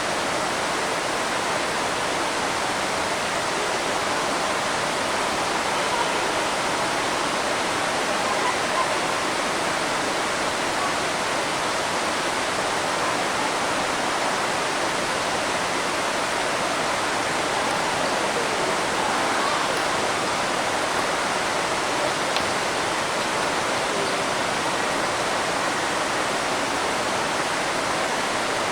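Steady, even rushing noise that holds at the same level throughout.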